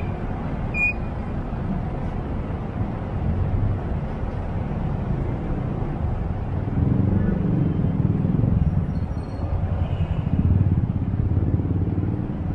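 Motorcycle and car engines idling in stopped road traffic: a steady low rumble that grows louder in the second half, with a brief high chirp about a second in.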